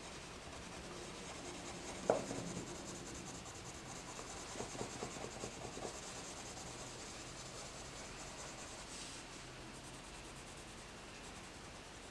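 Colored pencil scratching on paper as it shades and blends over an area. One sharp tap sounds about two seconds in, and a run of light ticks comes around five seconds in.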